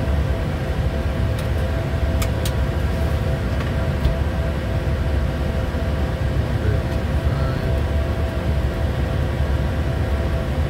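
Steady flight-deck noise of a Bombardier Challenger 350 jet in descent: the rush of airflow and the hum of its Honeywell HTF7350 turbofans, with a few steady tones over it. A few faint clicks about two seconds in.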